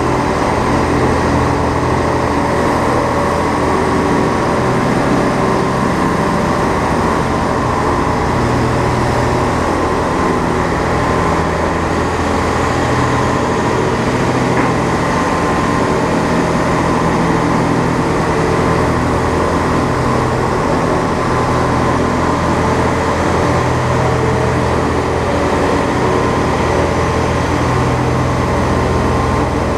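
Heavy transport vehicle's diesel engine running at a steady pitch under way, with road noise, heard from outside the cab.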